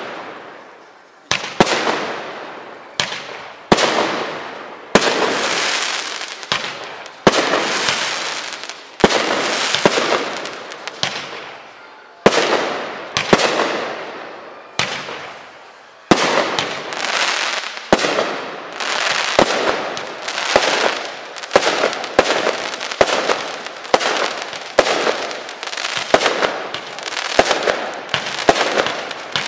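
Mass Effect 28-shot firework cake firing shot after shot: each shot a sharp bang followed by a crackling tail that fades over a second or so. The shots come every one and a half to two seconds at first, then faster, about one a second, from about halfway through.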